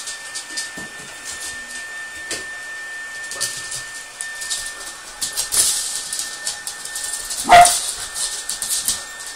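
Shetland sheepdogs' claws clicking and scrabbling on a wooden floor as they dart about, with one short bark near the end.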